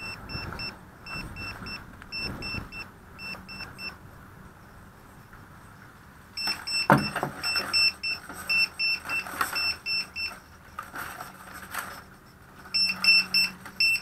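Short, high electronic beeps in quick pairs, repeating steadily, with a pause of about three seconds in the middle. There is a sharp knock about seven seconds in, and light knocks from handling.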